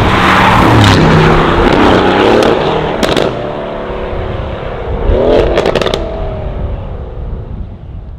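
2019 Aston Martin Vantage's twin-turbo 4.0 V8 driving past at speed through a Fi Exhaust valvetronic catback with sport downpipes. It revs hard, then rises again about halfway with crackles and pops from the exhaust before the note falls and fades away.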